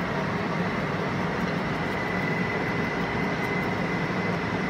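Steady hum of a running fan, with a faint high whine held on one pitch over a low drone.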